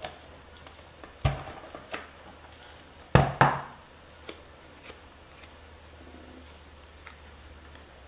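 Hands working with a tape runner and small paper cut-outs on a scrapbook page: light clicks and paper rustles, with two louder knocks, about a second in and about three seconds in.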